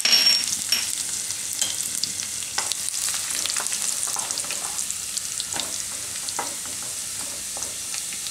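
Dried red chillies, cumin seeds and garlic sizzling in hot oil in a kadai, the tempering (vaghar) stage of an Indian curry. A louder burst of sizzling comes right at the start as the chillies hit the oil. After that a steady hiss with scattered crackles runs on while a spatula stirs the spices.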